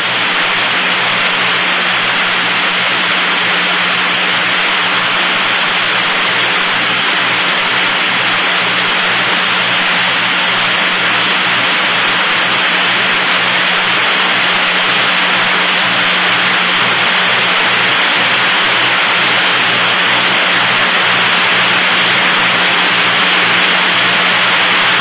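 Steady hiss of an open radio communications channel between transmissions, band-limited like a radio link, with a steady low hum underneath.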